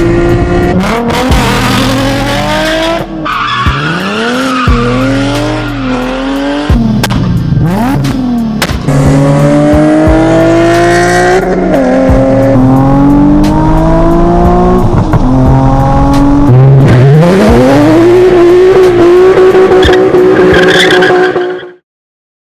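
Car engine revving hard, its pitch climbing steadily and then dropping sharply several times as it accelerates and shifts up through the gears. The sound cuts off abruptly near the end.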